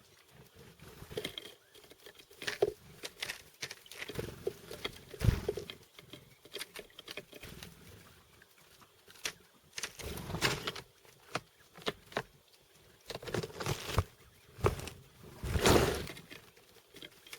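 Chickadees pecking and tapping at seeds: a run of irregular sharp taps and knocks, some louder than others, with the loudest near the end.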